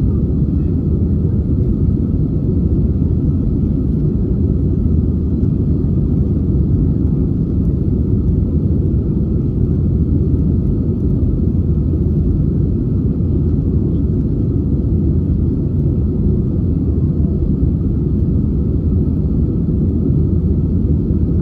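Steady low rumble of an Airbus A320's engines and airflow heard from inside the passenger cabin in flight, even in level with no changes in pitch.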